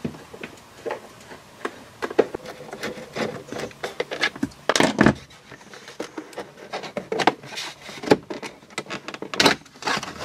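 Plastic A-pillar trim on a Talbot Express van cab being worked loose and pulled off by hand. Irregular clicks, knocks and rubbing of plastic against the pillar, with a louder cluster of knocks about five seconds in and another near the end.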